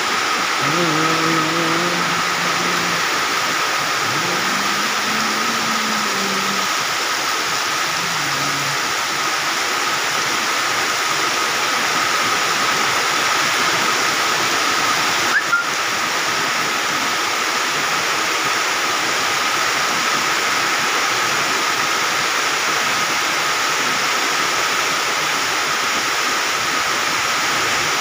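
Heavy rain with strong wind, a steady loud hiss of pouring water. A few faint drawn-out pitched calls sound under it in the first nine seconds, and a short click about halfway through.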